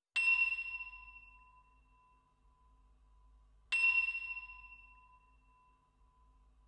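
A bell-like metallic chime struck twice, about three and a half seconds apart, each strike ringing high and clear and fading away within about a second and a half.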